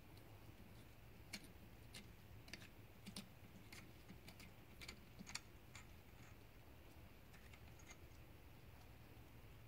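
Faint, irregular light metallic clicks from a small threaded plug and fingers working at a tapped oil-port hole in a GM 5.3 V8 engine block, as the plug is turned in by hand. The clicks come about once or twice a second and thin out after about six seconds.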